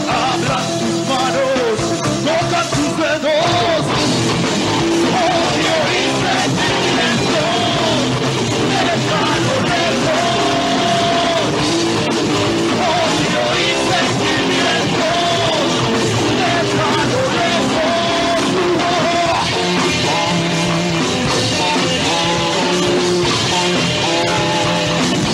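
Rock band playing live: a lead singer over two guitars, bass and drums, loud and steady throughout.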